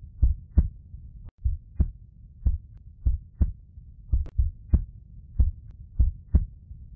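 Heartbeat sound effect: low, short thumps repeating about twice a second, some falling in close lub-dub pairs.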